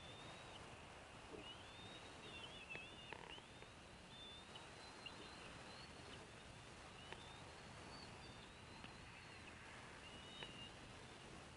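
Faint, high, wavering bird calls that come and go, with a few soft ticks, over a steady background hiss.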